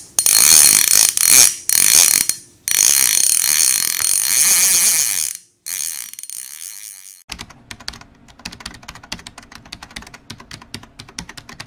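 Intro sound effects: loud hissing whooshes for about the first five seconds, then fast, even mechanical clicking like a ratchet winding, roughly ten clicks a second.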